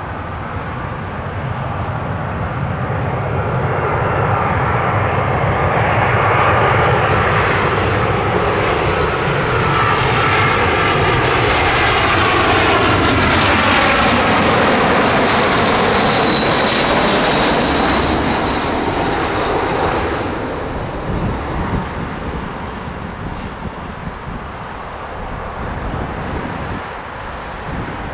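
Airbus A320-232 with IAE V2500 turbofans passing close by. The engine noise builds, peaks with a high whine that falls in pitch as the aircraft passes, then fades away.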